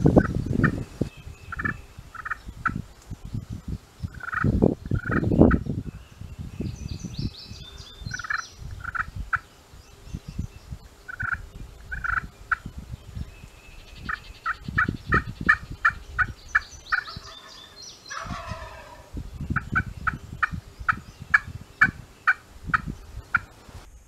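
Wild turkey calls: several runs of short yelps, about four a second at times, with a falling, rattling gobble about 18 seconds in. Low thumps of movement come near the start and about 5 seconds in.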